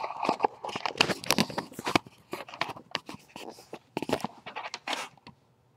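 Handling noise: a thick run of irregular clicks, knocks and scrapes as something is picked up, moved and set back in place.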